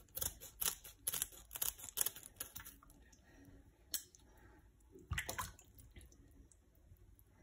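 Scissors snipping at the fins of a slippery catfish in a basin of water, with water splashing as the fish is handled. A quick run of sharp clicks comes in the first few seconds, then a few single clicks.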